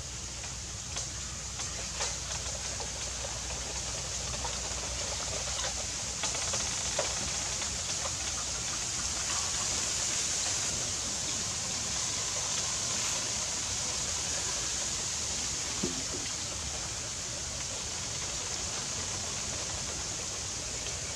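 Steady hissing from marinated mice grilling over embers, with a few faint crackles from the fire.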